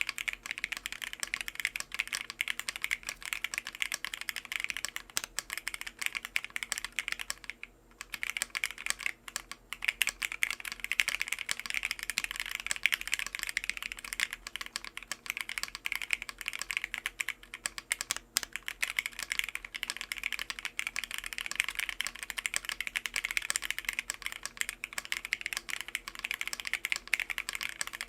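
Fast continuous typing on a Bakeneko mechanical keyboard fitted with stock Akko Jelly Black linear switches on an FR4 plate, with a brief pause about eight seconds in.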